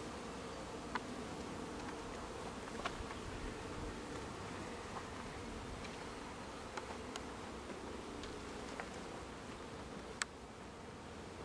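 Honeybees buzzing steadily around an open hive while a bee-covered frame is handled, with a few sharp clicks, the sharpest about ten seconds in.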